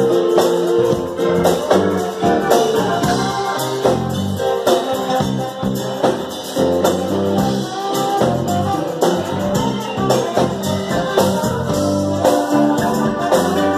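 Live band music at full volume, led by electric guitar over a steady beat, with no lead vocal in this stretch.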